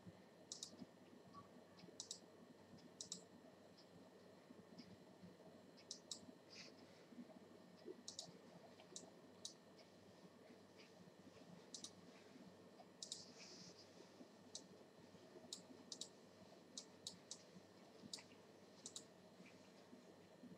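Faint, irregular computer mouse clicks, roughly one a second, some in quick pairs, over quiet steady room noise.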